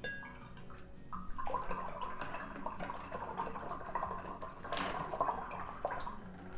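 Water sloshing and dripping in a small container, starting about a second in, with small clicks.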